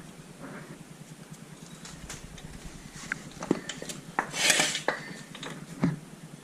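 Metallic clicks and knocks from an ATV's front axle and drivetrain as a wheel is turned by hand with the suspension at full drop, with a short, louder scraping rattle about four and a half seconds in. The axles are binding at full suspension droop after a lift-kit install.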